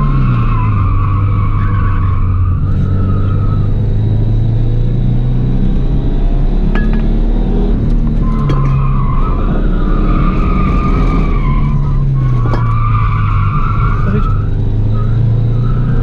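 Subaru Impreza's flat-four engine running hard through corners, heard from inside the cabin, its revs falling at the start. The tyres squeal three times as the car slides through the bends: for about three seconds at the start, again about halfway through, and once more near the end.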